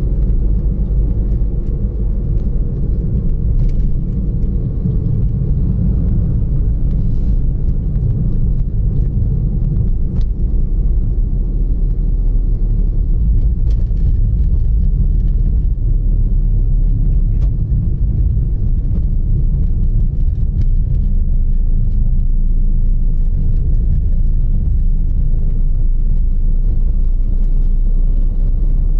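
Steady low rumble of a car driving along a road, tyre and engine noise heard from inside the moving car.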